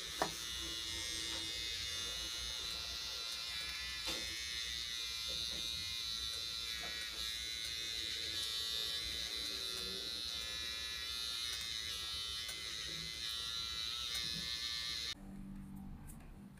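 Cordless electric pet hair clipper with its shortest blade head running steadily as it shaves the fur between a poodle's paw pads. It gives a high, even whine with a few light knocks as the blade touches the paw, and it switches off suddenly about 15 seconds in.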